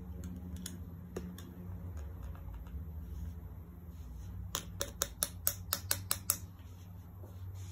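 A quick run of about nine light, sharp clicks or taps over roughly two seconds, past the middle, over a low steady hum.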